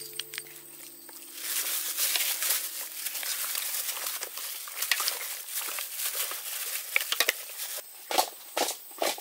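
Raw beef ribs being mixed by hand with their marinade in a metal bowl: wet squelching of the meat and the crinkle of a plastic bag. Near the end comes a run of soft thuds, about two a second.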